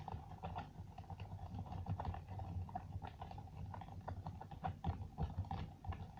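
A stick stirring slime in a bowl: quick, irregular clicks and taps of the stick against the bowl mixed with sticky squelches as the activator is worked into the glue.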